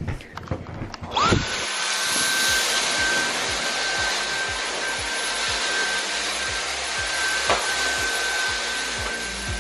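Cordless stick vacuum cleaner switched on about a second in, its motor spinning up quickly to a steady high whine over an even hiss of suction.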